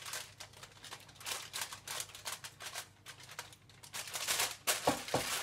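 Tinfoil crinkling and rustling under hands working a whole raw fish lying on it: a run of short, irregular crackles, with a couple of duller knocks near the end.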